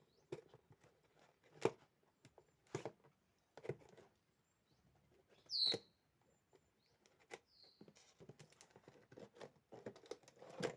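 Hand-handling of a hair dryer and its packaging: scattered light clicks and knocks about a second apart, then a run of small ticks and rustles near the end, with two short high chirps in between. The dryer is not running.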